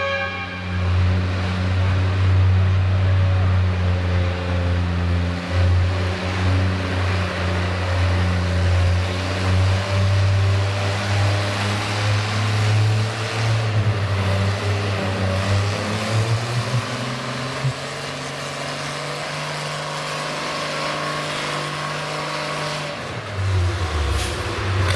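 Farmall 560 pulling tractor's engine running steadily at low revs while hitched to the sled. Its pitch steps up about two-thirds of the way through and drops back shortly before the end.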